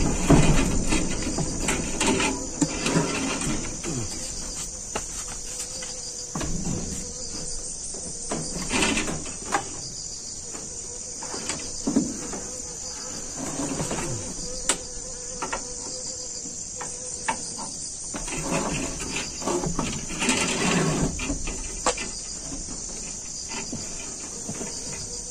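Steady high-pitched chirring of insects throughout, with scattered knocks and clicks from hands working a pipe fitting into a plastic water drum.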